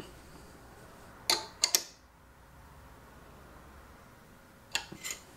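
Wrench clicking on the nut of a motorcycle fork cartridge rod as it is tightened down in a vise: a few sharp metal clicks between one and two seconds in, and two more near the end.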